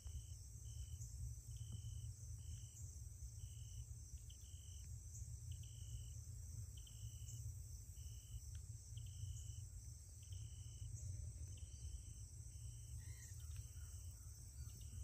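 An insect chirping a short, even, high note about one and a half times a second, over a steady low rumble and a faint high drone.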